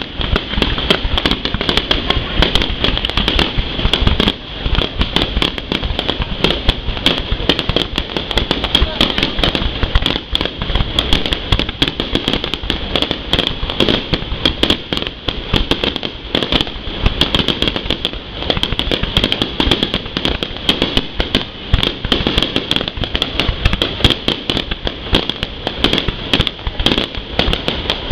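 Fireworks display: a dense, unbroken run of rapid bangs and crackling shell bursts, with no let-up.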